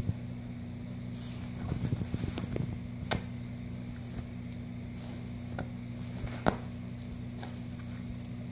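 A dog chewing and tearing at a plush toy: soft crackling and rustling about two seconds in, and a few sharp single clicks later, over a steady low hum.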